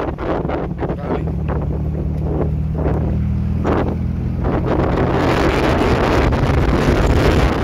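Dune buggy engine running steadily while driving along the beach, with heavy gusting wind noise on the microphone.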